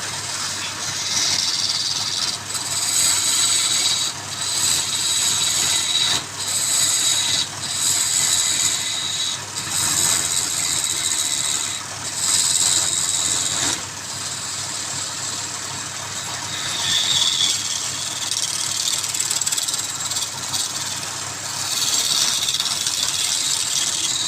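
Wood lathe running, with a turning tool cutting the spinning wood in repeated short passes that give a high hissing scrape every second or so.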